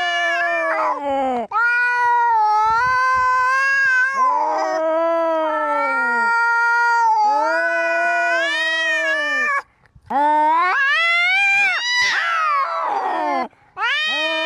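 Domestic cats caterwauling in a fight standoff: long, wavering yowls that rise and fall in pitch, one after another, two voices overlapping at times, with brief pauses between.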